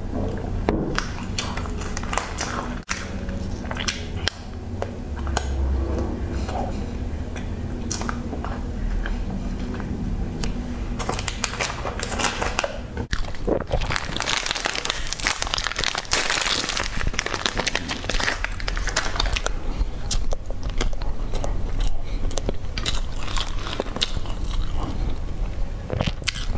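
Close-miked chewing and wet mouth sounds of someone eating, with a plastic snack wrapper crinkling loudly as it is torn open around the middle, and a bite into a small bun near the end.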